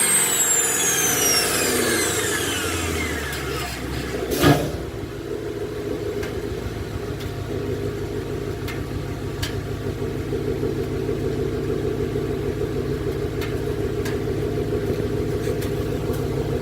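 2018 Ford Mustang GT's 5.0-litre V8 through a full aftermarket exhaust, revs falling back over the first few seconds, then a short sharp burst about four and a half seconds in, after which it settles into a steady, slightly lumpy idle.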